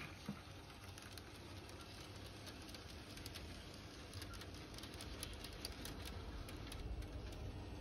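Heljan 009-gauge model locomotive Lyn running with three coaches: a steady low hum with light clicking of the wheels on the track, busiest in the middle stretch.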